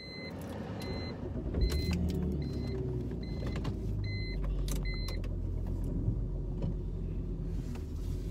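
A car's warning chime beeping about once every 0.8 seconds, seven times, then stopping about five seconds in. Under it, a low rumble of the car's engine and tyres builds over the first two seconds and holds steady.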